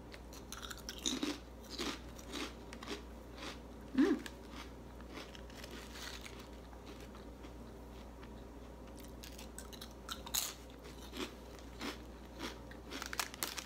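A person biting into and chewing a potato crisp: crisp, irregular crunches that are strongest in the first few seconds, the loudest about four seconds in, then sparser chewing clicks.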